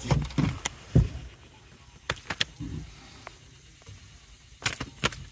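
Heavy thumps and knocks against an aluminum boat as a freshly caught gar is handled aboard, a few loud ones in the first second, then scattered sharp clicks and knocks.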